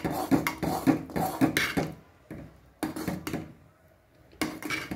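Metal spoon stirring thick oats porridge in a metal pot, scraping and clinking against the pot in quick strokes for about two seconds, then a few scattered scrapes with quiet gaps between.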